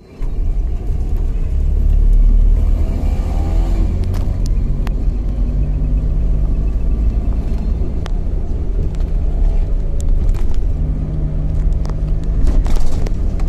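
On-board sound of a moving road vehicle: a steady low rumble of engine and road noise, with a faint rising-and-falling engine note about three seconds in and a few short clicks and knocks.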